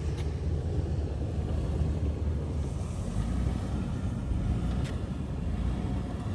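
Low rumble of a 2018 Toyota 4Runner TRD Pro on a rough off-road trail, mixed with wind buffeting the microphone, with two sharp knocks, one right at the start and one about five seconds in.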